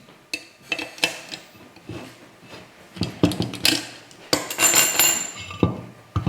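Metal parts of an aluminum joystick table mount clinking and knocking as they are handled and assembled: a string of sharp knocks, with a longer ringing metallic scrape about four and a half seconds in.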